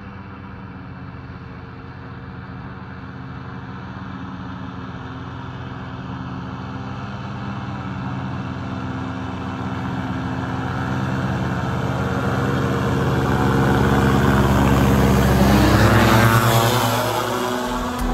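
Paramotor engine and propeller running, growing steadily louder as the aircraft approaches, then dropping in pitch as it passes close by a few seconds before the end.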